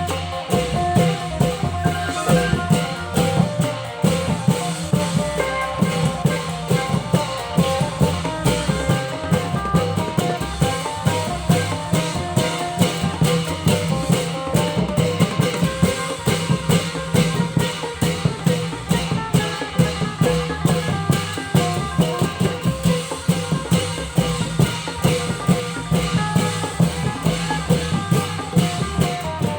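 A Thai klong yao long-drum ensemble playing a fast, steady drum rhythm, with a melody line running over the drums.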